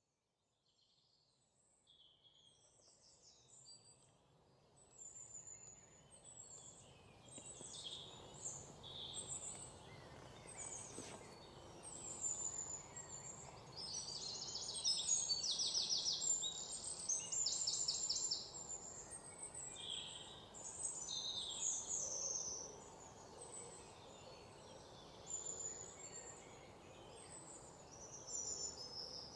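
Many small birds chirping and singing, with short high calls and a few quick rattling trills, over a low steady hiss. The sound fades in from silence over the first several seconds.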